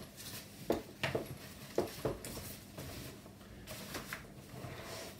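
Bugaboo Lynx bassinet canopy fabric being pulled around the side and fitted over its frame: rustling handling noise with about four sharp clicks in the first two seconds, then softer rustling.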